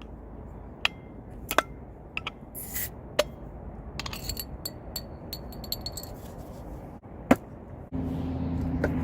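Scattered light clicks and taps of small objects being handled, with one sharper knock about seven seconds in. About a second before the end a steady low mechanical hum starts, like an engine running.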